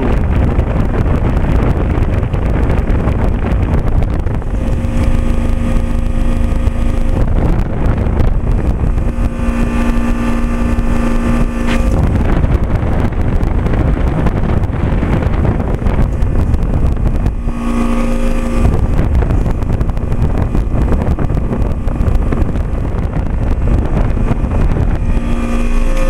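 Trane XL20i 3-ton heat pump outdoor unit running in heating mode: a steady rush of air from the condenser fan, with the hum of its dual Climatuff reciprocating compressors growing stronger several times.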